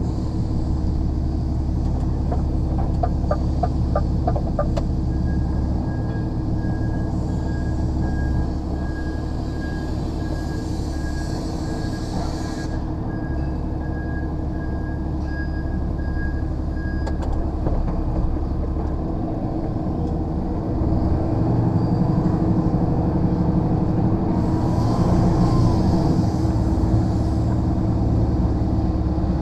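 Lorry diesel engine running steadily, heard from inside the cab as the truck manoeuvres. For about ten seconds in the middle, a run of evenly spaced beeps sounds over the engine.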